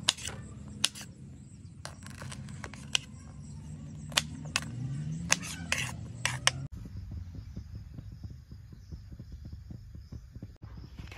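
Kitchen knife chopping okra on a wooden cutting board: a series of sharp, irregularly spaced knocks as the blade cuts through the pods and strikes the wood. About two-thirds of the way in this gives way to a soft, steady crackling hiss of a kadai heating on a gas burner.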